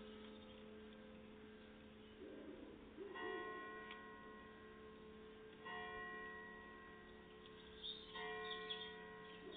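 A church bell tolling, three strokes about two and a half seconds apart, each stroke ringing on until the next. A faint steady hum sits underneath.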